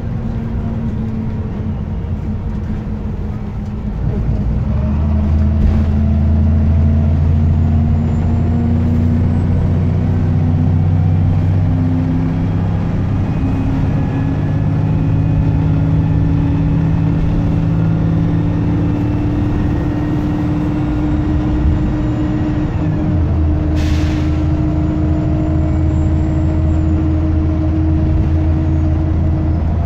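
Diesel engine of a VDL SB200 Pulsar single-deck bus heard from inside the saloon, working hard under acceleration. It gets louder about four seconds in, as the automatic gearbox kicks down, and its note steps up partway through. A faint high whine runs over it, and there is a brief hiss of air late on.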